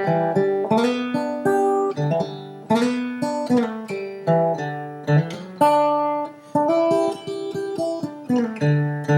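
Background music: acoustic guitar picked and strummed, one plucked note or chord after another, each dying away.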